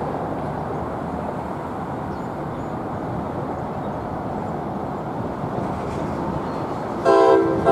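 Steady rumble of an approaching New Jersey Transit commuter train, then, about seven seconds in, a loud blast of the leading Multilevel II cab car's horn, several tones sounding together as a chord.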